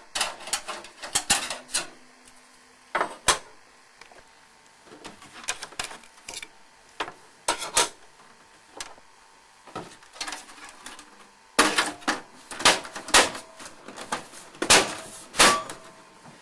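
Sheet-metal clicks and clatter from a computer case as a metal drive-bay blanking plate is worked out of the case front, in irregular clusters with a few brief metallic rings.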